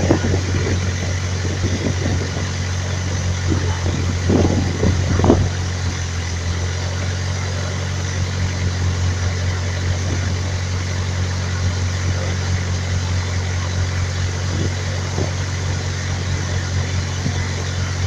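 Small motorboat's engine running steadily at cruising speed, a low, even drone.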